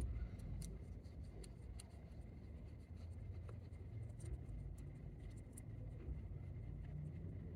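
Clear slime being mixed by hand, with many small, irregular sticky clicks and pops over a low rumble.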